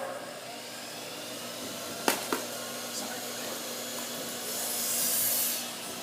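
A small motor running with a steady rush of air, with two sharp clicks about two seconds in and a louder hiss that swells and fades near the end.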